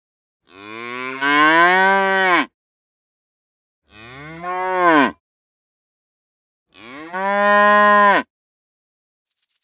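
An animal calling three times: long, loud, drawn-out calls, each rising and then falling in pitch, with short pauses between them.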